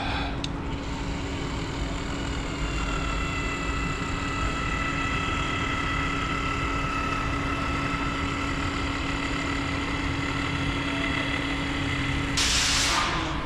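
A machine running steadily with a constant hum and a high whine, then a loud burst of hiss lasting about a second near the end.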